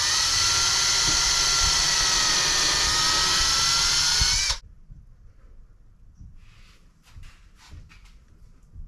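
Power drill running steadily, drilling a screw hole into a wooden board, its pitch rising slightly before it stops abruptly about four and a half seconds in. Faint handling clicks follow.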